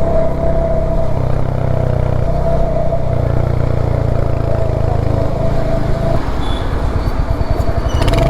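Royal Enfield Hunter 350's single-cylinder engine running steadily, with a steady droning buzz over the engine note, being checked for the 'trr' noise that appeared after its third service. About six seconds in, the engine note turns uneven and pulsing as the revs change.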